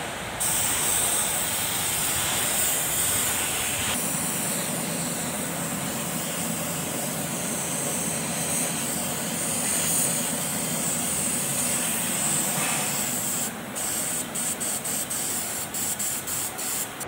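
Compressed-air paint spray gun hissing steadily as paint is sprayed on the tractor, then switched on and off in several short bursts near the end.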